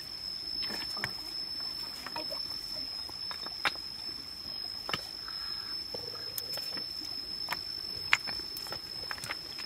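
Hands rummaging among wet stones and small twigs at the edge of a muddy trickle, giving scattered sharp clicks and small knocks, the loudest about eight seconds in. A steady high-pitched tone sits underneath.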